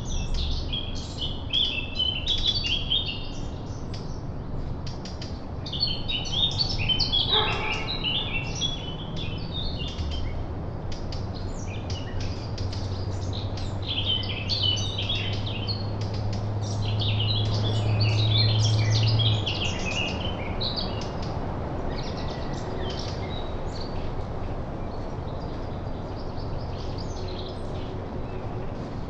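Small songbirds chirping and twittering in a busy chorus of short, high calls. A low steady drone rises in about ten seconds in and stops abruptly near twenty seconds.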